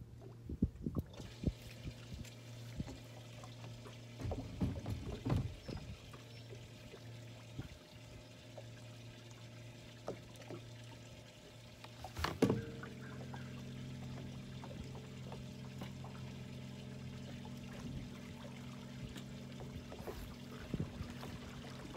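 Electric trolling motor humming steadily on a boat as water trickles and laps against the hull, with small knocks on the deck. About twelve seconds in there is a click, and the motor's hum shifts higher and gets louder as its speed is changed.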